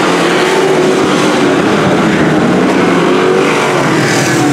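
Dirt-track race trucks running hard around the oval and passing by: a loud, steady engine drone whose pitch rises and falls a little as the trucks go past.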